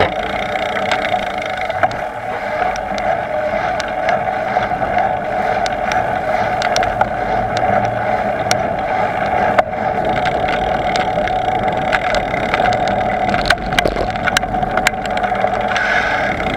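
Steady running noise of a bicycle ride: a constant mid-pitched hum over wind and road rumble, with scattered clicks and rattles from bumps.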